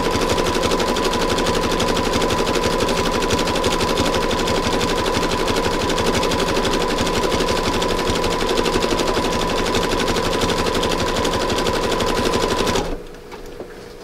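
Sewing machine stitching fast and steadily through a fabric-wrapped rope coil: a rapid needle clatter over the motor's steady whine, stopping near the end.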